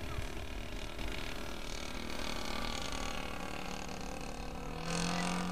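The Evolution 33 two-stroke gas engine of a Hanger 9 Super Cub RC plane droning steadily in flight overhead; near the end its tone comes in stronger and steady.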